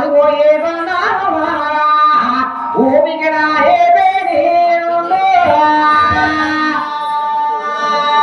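A woman singing a Telugu folk song, holding long notes and sliding between pitches.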